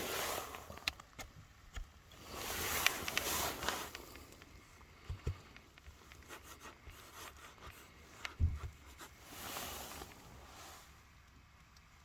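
Rustling and scraping in three swells, with scattered small clicks and two soft low thumps.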